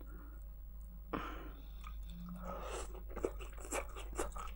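A person chewing a mouthful of cauliflower casserole close to the microphone, with a run of small wet mouth clicks in the second half. There is a short burst of noise about a second in.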